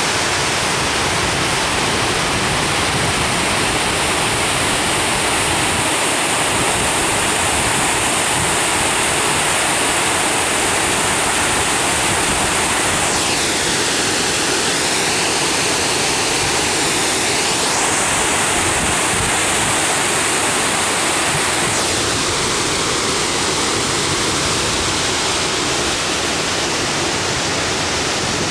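Water spilling over Bloede Dam, a low concrete river dam, making a loud, steady rush.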